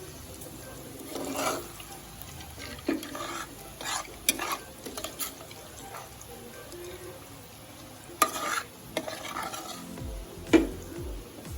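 A cooking utensil scraping, stirring and knocking against a frying pan while pan-fried garlic longganisa is moved about and drained, over a faint sizzle of hot oil. The scrapes and knocks come at irregular intervals, with the sharpest about eight and ten and a half seconds in.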